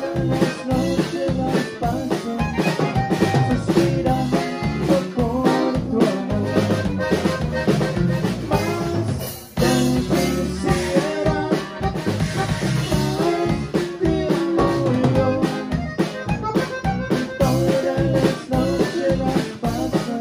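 Live conjunto band playing: a button accordion over drum kit, electric bass and guitar, with a steady beat. The band drops out for a brief break about nine seconds in, then comes straight back in.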